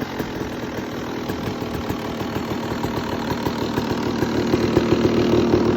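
250cc two-stroke motocross bike engine idling with a rapid, uneven crackle of firing pulses, growing louder over the last couple of seconds.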